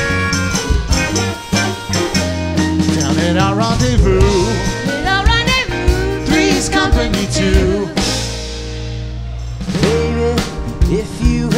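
Live band playing a TV theme: drum kit, electric and acoustic guitars and keyboards, with a wavering melody line over them. About eight seconds in the band drops to a softer held chord with the cymbals stopped, then comes back in full about a second and a half later.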